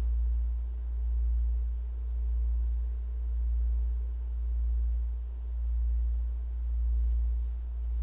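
A loud, low, steady hum that swells and fades about once a second.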